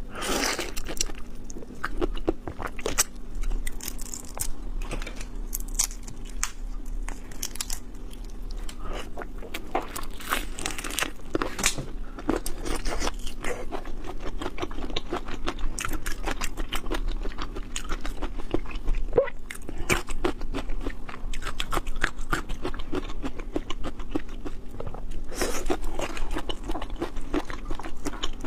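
Close-miked eating sounds: steady chewing and crunching with many small wet clicks and crackles, typical of biting into raw shrimp and prawns.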